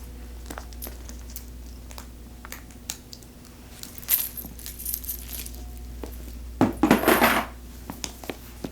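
Small metal handbag hardware clinking and clicking as the bag is handled, with a louder run of jingling clinks about four seconds in and another, the loudest, around seven seconds in.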